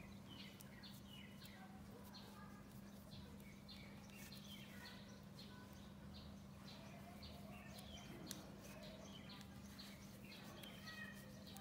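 Near silence with many faint, short bird chirps scattered throughout, over a steady low hum.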